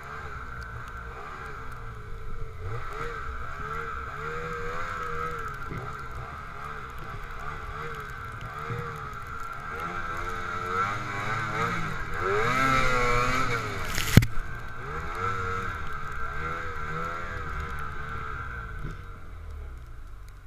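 Snowmobile engine running under changing throttle while riding over snow, its pitch rising and falling, loudest and highest about twelve to fourteen seconds in. A single sharp knock comes about fourteen seconds in, and the engine drops back near the end.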